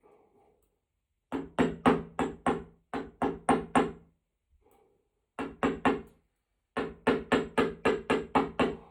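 Hammer blows on metal, each with a short ringing tone, struck in quick runs of about four a second with short pauses between runs: a stylus being forged by hand.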